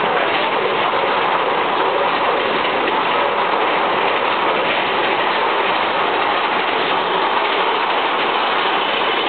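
Steady, loud rushing noise of a mine-train roller coaster running along its track through a rock tunnel, with no separate clacks or impacts standing out.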